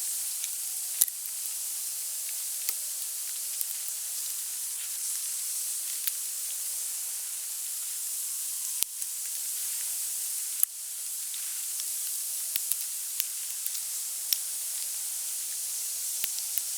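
Wood campfire burning: a steady hiss with frequent sharp crackles and pops, a few of them louder.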